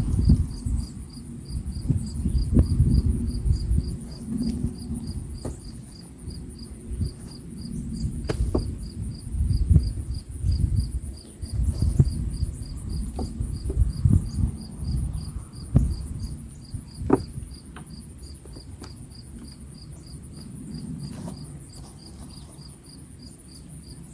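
Crickets chirping in an even, pulsing rhythm, over the rustling and scraping of hands working through soil to pull out sweet potatoes, with a few sharp knocks. The handling noise eases off in the last third.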